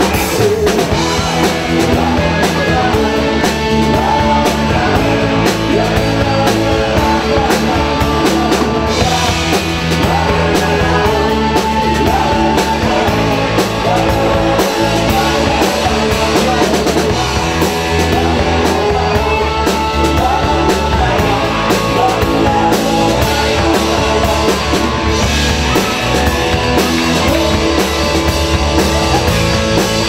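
Live rock band playing: drum kit with a steady beat, electric guitar and bass.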